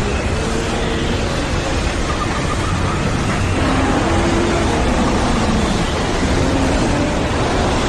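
Strong wind rushing steadily, with faint wavering whistles riding over it and growing a little louder about three seconds in.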